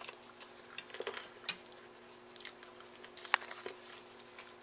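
Light clicks and taps of a metal spoon while eating yogurt from a container, with a sharper tap about one and a half seconds in and another a little past three seconds.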